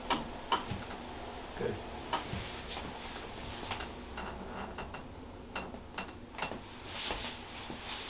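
Light, irregular clicks and soft rustling from the patient's leg and clothing being handled and moved on a padded treatment table, a few ticks a second over a faint room hum.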